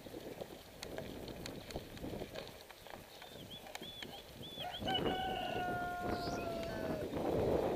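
A rooster crowing once, a long held note about five seconds in that falls slightly at the end. Before it come a few quick high chirps, all over the crunch and rattle of bicycle tyres on a gravel track.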